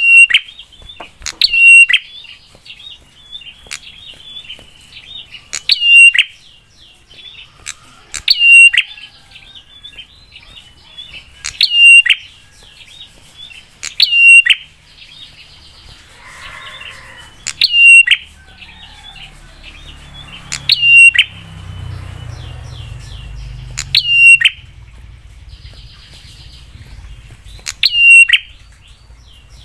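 Prinias (prenjak) calling: loud, sharp notes with a quick falling sweep, repeated every two to four seconds over a steady fast twittering.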